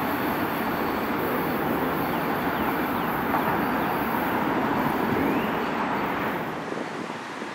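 DART light-rail train running along an elevated track: a steady rumble of wheels on rail that fades about six and a half seconds in.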